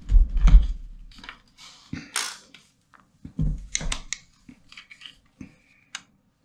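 Handling noise close to the microphone: a heavy low thump with clicks at the start, then scattered clicks, knocks and rustles, including a longer scrape about two seconds in, becoming sparser toward the end.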